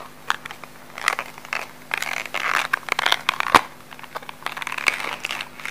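Sealed packaging on a small product box crinkling and crackling as fingers pick and tear at it to open it, with irregular small clicks and one sharper click about three and a half seconds in.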